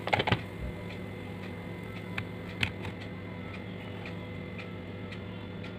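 Plastic lid of a mini electric waffle maker clicking as it is opened, with a couple of lighter knocks about two and a half seconds in, over faint even ticking at about two a second.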